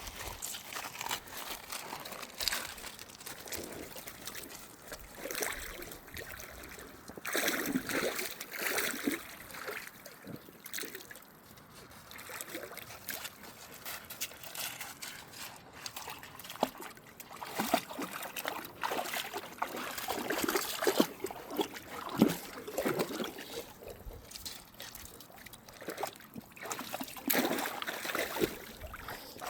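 Water trickling in a shallow stream, with irregular sloshing and splashing from something moving through the water.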